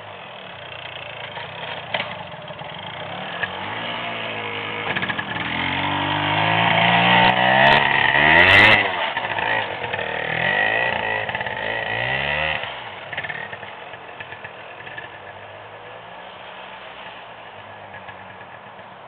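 Dirt bike engine revving up and down as it is ridden over the humps. It grows louder to a peak near the middle, then fades as the bike rides away.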